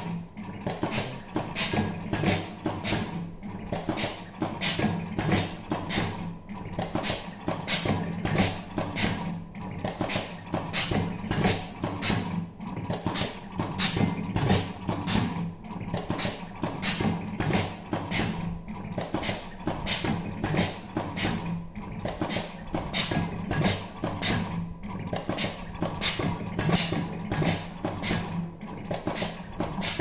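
Automatic sheathed-wire stripping machine cycling: a sharp mechanical clack about twice a second as the blades cut and strip each wire, over the steady hum of its feed motors.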